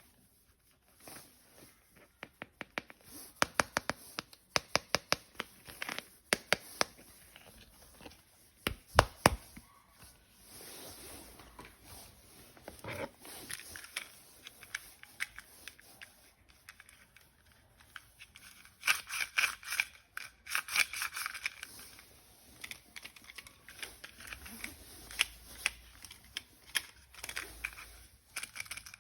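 Plastic toy parts and packaging being handled during unboxing: a run of sharp clicks and taps, then crinkling and tearing of plastic wrap.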